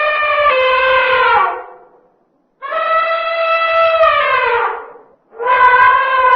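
An animal's long, horn-like pitched calls, repeated: one already sounding dies away about two seconds in, a second lasts about two and a half seconds, and a third starts near the end; each call drops in pitch as it ends.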